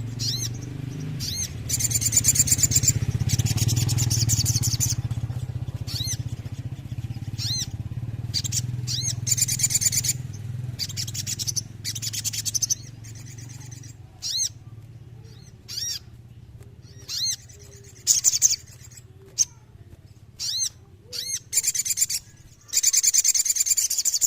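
Sogon (a spiderhunter) singing: high, rapid trilled rolls lasting a second or more alternate with short, sharp single notes. A low steady hum runs underneath for the first half and then fades out.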